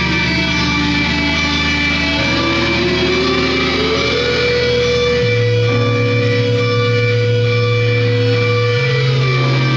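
Live noise music: layered, sustained drones from electronics and guitar effects. The low tones shift in steps, and a higher tone glides up about two seconds in, holds, and slides back down near the end.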